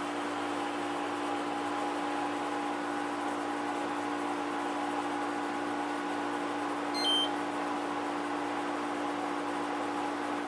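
Samsung AW05B5171TWA window air conditioner running, a steady mechanical hum of several held tones over an airflow hiss: machine noise the owner finds far from quiet. A single short electronic beep sounds about seven seconds in.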